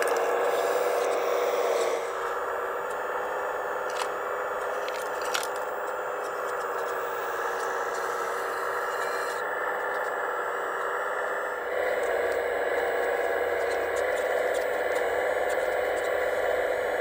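Steady whir of the hydraulic pump in a radio-controlled scale excavator as it works its arm and bucket. The whir drops in level about two seconds in and rises again about twelve seconds in, and a couple of small clicks of slate stones sound in between.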